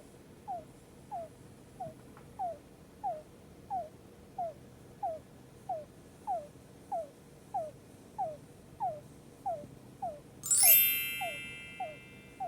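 Djungarian hamster making short, falling squeaks in a steady rhythm, about one and a half per second, the odd squeaking it makes in its sleep. Near the end a bright chime rings out once and fades over about two seconds.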